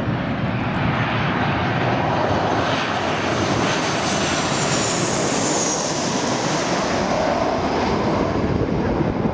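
Jet airliner passing low overhead on final approach to land: a steady engine roar with a high whine that falls in pitch as it goes by, about halfway through.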